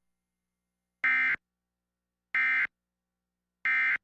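Emergency Alert System end-of-message code: three short, identical bursts of buzzing digital data tone, each about a third of a second long and roughly a second and a third apart, signalling that the alert message is over.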